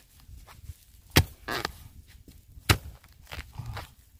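A digging spade strikes dry, hard ground twice, about a second and a half apart, with fainter scraping of soil in between, as earth is dug away from around a young wild bamboo shoot.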